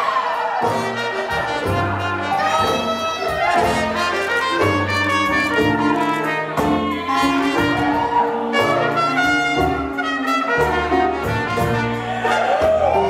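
Live swing jazz band playing, horns leading over a bass line and a steady drum beat, with bent brass notes near the end.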